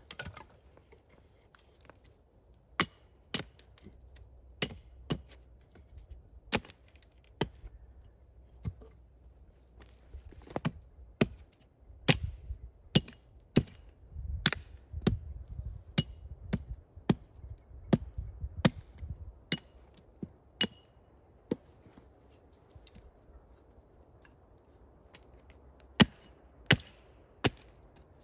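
Sharp blows of a tool on wood, struck irregularly at about one to two a second in three runs with short pauses between.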